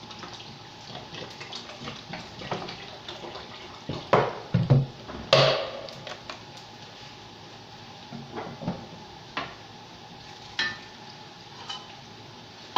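Water poured from a large plastic bottle into a pot of rice, then several loud clunks of kitchenware about four to five seconds in, with a few lighter knocks after.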